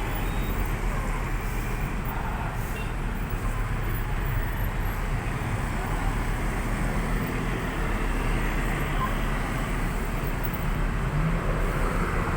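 Steady roadside traffic noise from passing vehicles, rising a little near the end; no musical bus horn sounds.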